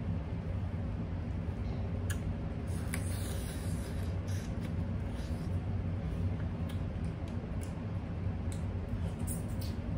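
Crab legs being broken apart and eaten by hand: scattered small clicks and cracks of shell, with a brief wet sucking sound about three seconds in as a leg is put to the mouth. A steady low hum runs underneath.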